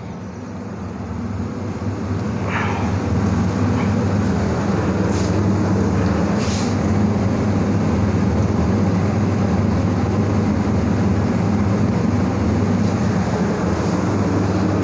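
A steady low hum with a noisy rushing layer, rising over the first two seconds and then holding level.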